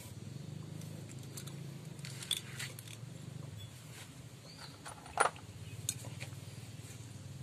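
Light metallic clinks from hand work on the exposed clutch of a Honda Revo Absolute motorcycle engine, a few spaced out, the sharpest about five seconds in, over a low steady hum.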